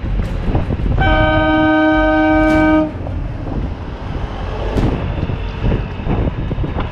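A vehicle horn blown once and held for about two seconds, a loud chord of several notes sounding together. It sits over the steady rumble of the motorcycle and wind buffeting the helmet microphone.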